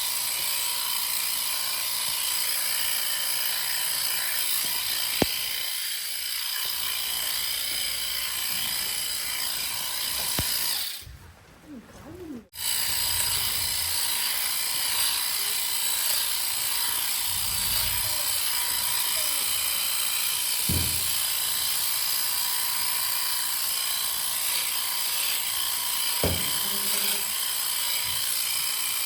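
Electric sheep shears running steadily as a lamb is dagged out. The motor noise drops away for about a second and a half a little before the middle, and there are a few faint knocks.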